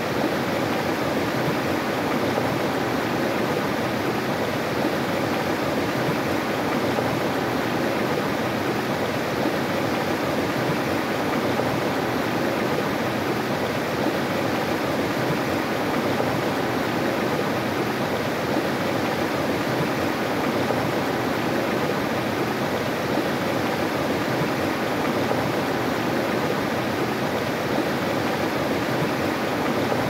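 A small river rushing over a low rock ledge and through shallow riffles: a steady, even splashing rush of water.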